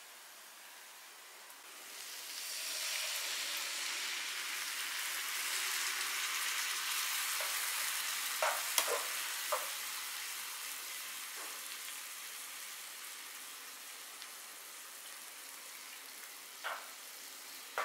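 Oncom stir-fry sizzling in hot oil in a pan. A loud sizzle rises sharply about two seconds in and slowly dies down, with a few short knocks of a spatula against the pan around the middle and near the end.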